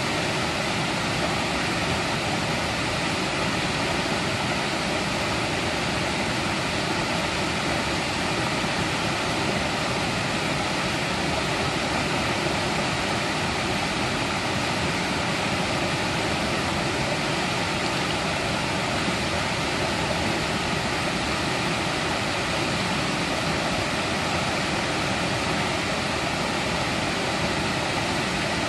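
Mountain valley stream flowing: a steady, unbroken rush of water with no pauses or changes.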